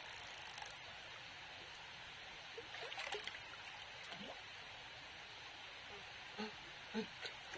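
Shallow rocky stream trickling steadily and faintly over stones, with a few soft splashes as hands reach into the water, the last of them near the end.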